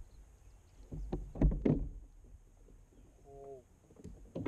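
A few dull knocks and bumps on the hollow plastic hull of a fishing kayak, clustered about a second in, as a freshly caught crappie is handled in the boat. A brief low hummed voice sound follows near the end.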